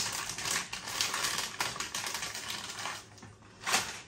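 Lay's crisp packet crinkling and rustling in the hand, a dense run of fine crackles that thins out about three seconds in, with one last short rustle near the end as the packet is laid down.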